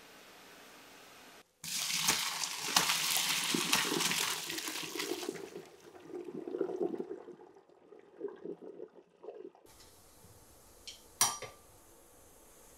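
Hot cooking water and boiled greens poured from a pot into a colander in a kitchen sink: a few seconds of loud splashing, then a lower trickling and gurgling as the water drains away. Near the end, a single sharp clink of a glass bowl on the countertop.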